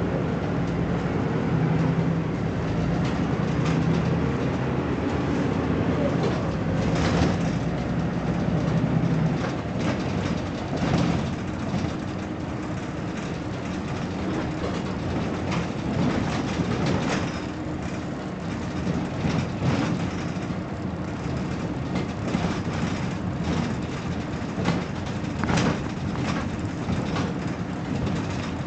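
BMC Belde 220-SLF city bus's diesel engine pulling hard for about the first nine seconds, then running lighter. Rattles and knocks from the bus run through it.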